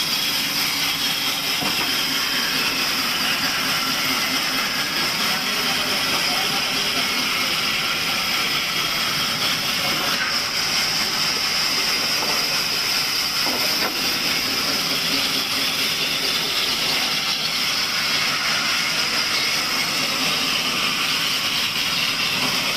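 Table sawmill machine running with a steady, loud, hiss-like noise that does not change.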